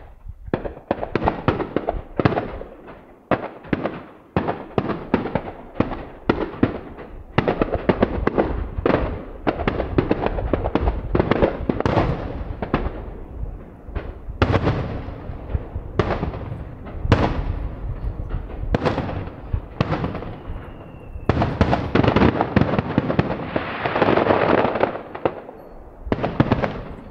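Fireworks display: aerial shells bursting in rapid succession, several echoing bangs a second. A short whistle falls slightly in pitch about twenty seconds in, and then the bursts pile into a dense, sustained barrage a few seconds before the end.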